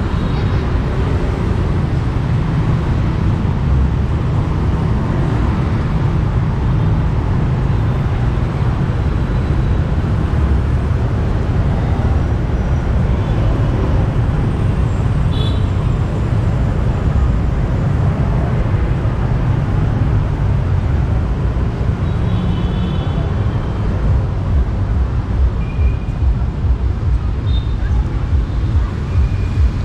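Busy city street traffic: a steady, dense mix of motorbike and car engines and tyres passing, with a few short high beeps in between.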